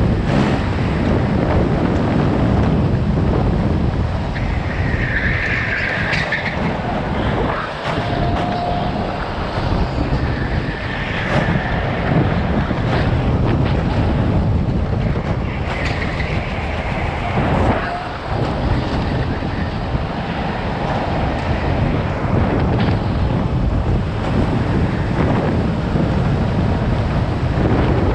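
Go-kart running at race pace, heard from its onboard camera, with wind rushing over the microphone.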